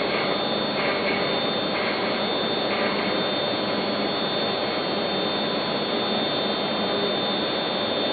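Milling robot's high-speed spindle cutting a wooden part: a steady, loud machining noise with a constant high whine, and faint regular pulses about once a second during the first three seconds.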